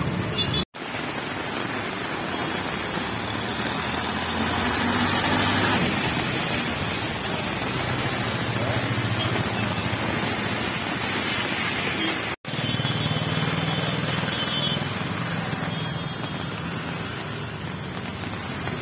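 Street traffic on a wet road: motorcycles, scooters and cars passing with a low engine hum over a steady hiss of tyres on wet asphalt. The sound cuts out twice for a moment, about a second in and again about two-thirds of the way through.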